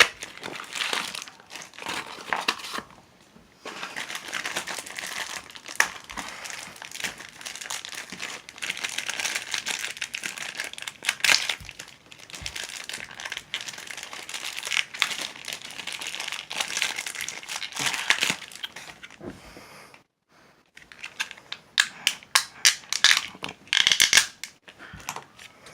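Packaging of a small mystery toy box being torn open and its plastic wrappers crinkled and crumpled by hand, followed near the end by a run of sharp clicks.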